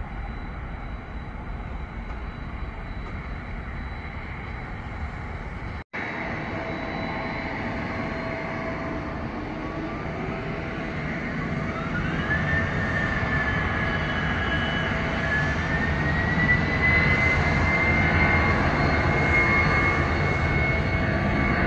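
Boeing 767-223 freighter's GE CF6-80A turbofan engines running at low thrust as it lines up, then spooling up for takeoff: from about halfway through a whine rises in pitch and the engine noise grows louder. The sound cuts out for an instant about a quarter of the way in.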